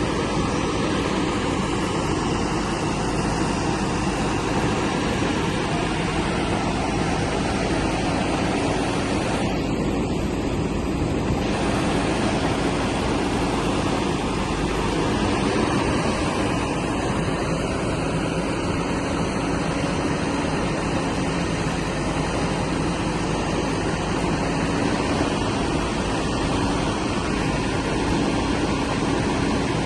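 Diesel engine of a working backhoe loader running steadily, a dense mechanical drone with a low steady hum.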